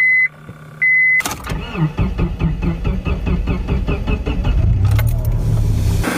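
Two short electronic beeps, then a car engine cranking on its starter in a rhythmic churn. About three and a half seconds in, it catches and runs.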